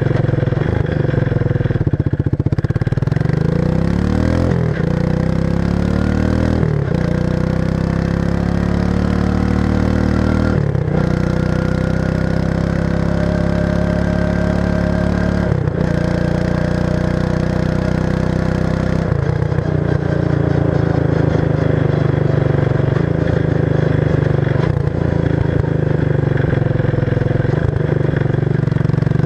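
1994 Suzuki King Quad 300 ATV engine running through its stock muffler with the baffles removed, giving a loud open exhaust. Its pitch climbs and drops back abruptly several times, then holds steadier in the last third.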